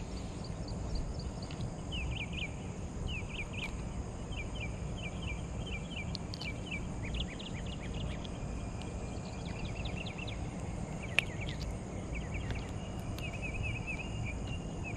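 Outdoor pond-side ambience: a steady low background rumble, with short high chirps repeating in quick little runs from about two seconds in. A single sharp click comes about three-quarters of the way through.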